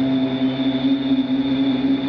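A man's voice chanting, holding one long steady note through the microphone, with a faint steady high-pitched whine behind it.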